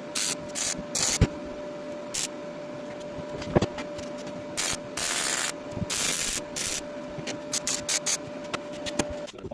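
Irregular short bursts of hissing, one longer burst about five seconds in, over a steady machine hum, with a few sharp knocks.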